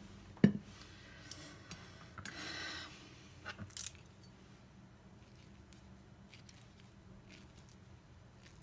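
Kitchen handling sounds while preparing an avocado. A sharp click about half a second in, as the avocado pit is set down on a ceramic plate. A short scrape a couple of seconds later and a few light clicks, as a kitchen knife works on the avocado halves over a plastic cutting board.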